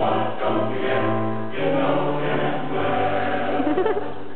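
Male choir singing in harmony, holding long chords that shift every second or so.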